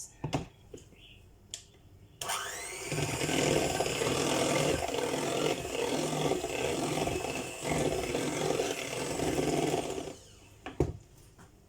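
Electric hand mixer switched on about two seconds in, its motor whining up to speed, then running steadily as it beats the wet muffin batter, and switched off near the end. A few light knocks come before and after.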